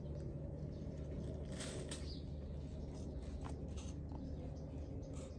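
Hands scooping and pressing roasted barley flour into a wooden offering box, making soft scattered rustles and pats over a steady low background rumble.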